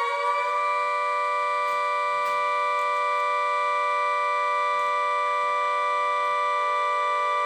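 3D-printed miniature 3T22 dual-rotor air raid siren, its 12-port and 10-port horns sounding together, reaching full speed about half a second in and then holding a steady two-note chord. A fainter, lower steady tone joins about six and a half seconds in.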